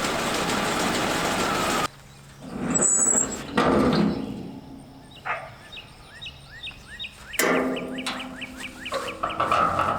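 Birds chirping in a quick repeated series, after a steady rushing noise that cuts off abruptly about two seconds in.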